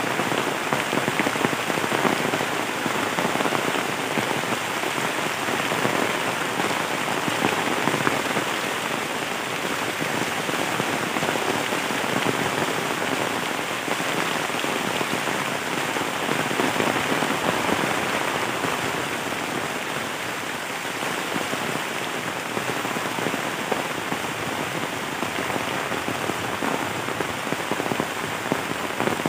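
Heavy rain falling steadily on bamboo leaves, foliage and leaf-littered ground: a dense, even hiss made of countless fine drop impacts.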